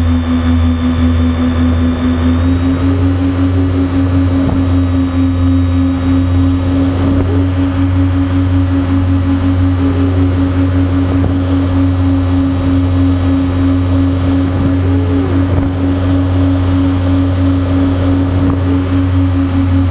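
The twin electric motors and propellers of a Multiplex TwinStar RC plane, heard through its onboard camera, running at a steady pitch under a heavy rumble of wind and airframe vibration. The pitch dips slightly at the start and picks back up about two seconds in.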